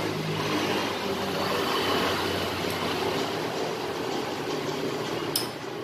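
Steady mechanical background noise with faint low hum lines, and a sharp click near the end.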